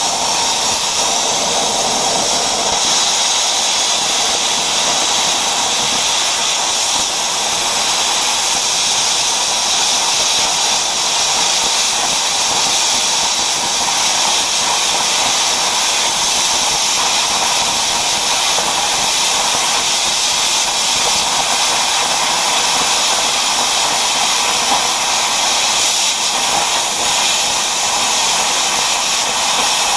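Eastwood 40 amp plasma cutter's arc hissing steadily as it cuts through rusty quarter-inch steel plate.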